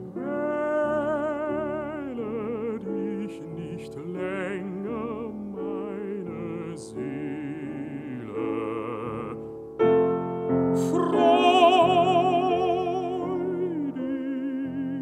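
Baritone singing a German art song in a full, wide vibrato, with piano accompaniment; the voice swells louder about ten seconds in.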